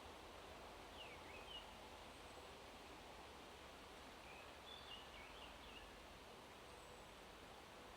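Faint steady hiss of wind through forest leaves, with a songbird calling softly twice: a short falling note about a second in, then a brief warbled phrase around the middle.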